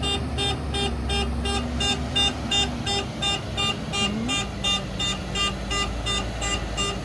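Reversing alarm on road-construction machinery beeping steadily, about three beeps a second, over the low rumble of a diesel engine.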